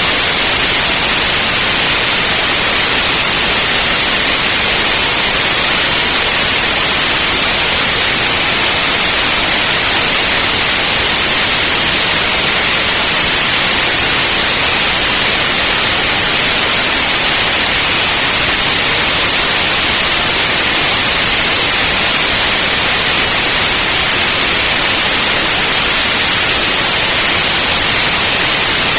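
Steady, loud white noise: an even hiss, strongest in the high end, with no change or breaks.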